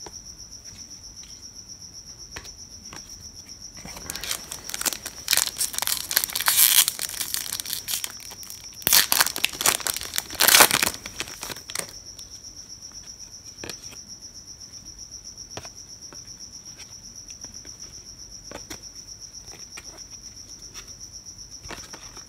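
A cricket chirping steadily in an even pulsing rhythm throughout. From about four to eleven seconds in, a foil card-pack wrapper crinkles and tears loudly in two spells, the loudest sound here.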